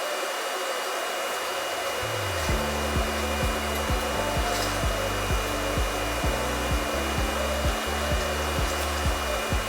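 Heat gun blowing steadily with a thin high whine, heating heat shrink tubing over a soldered wire splice. Background music with a steady beat comes in about two seconds in.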